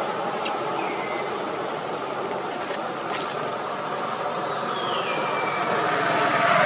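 Steady rumble of passing vehicle traffic, swelling louder near the end as a vehicle comes closer, with two brief clicks and a couple of faint falling whistles over it.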